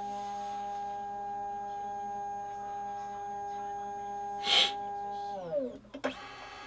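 Epson V750 flatbed scanner's drive motor whining at a steady pitch as the scan head travels during a preview scan. About five seconds in the whine slides down in pitch and stops as the motor slows, and after a short clatter a new, higher motor tone with a hiss starts. A brief, loud breathy noise cuts in about four and a half seconds in.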